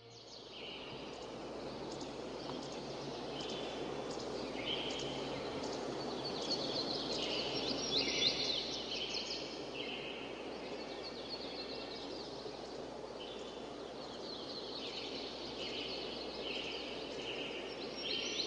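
Rural outdoor ambience: birds calling in short, repeated phrases over a steady background rush, with the calls loudest about eight seconds in.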